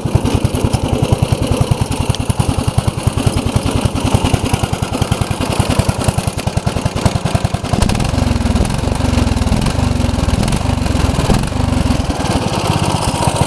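15 hp OHV Briggs & Stratton engine of a 1990 Craftsman riding mower running smoothly with an even beat. About eight seconds in, the engine note changes and grows fuller and heavier for several seconds.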